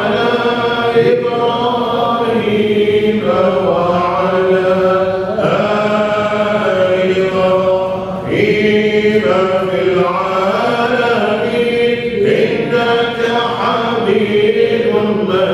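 Islamic dhikr (athkaar) chanted in Arabic: a melodic vocal chant with long held notes and slow, gliding changes of pitch, pausing briefly for breath a couple of times.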